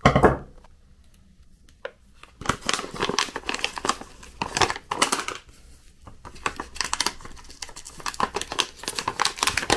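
A resealable foil stand-up pouch crinkling and rustling as it is handled and pulled open by hand. A short loud rustle at the very start, then about two seconds of near quiet before the dense crinkling begins.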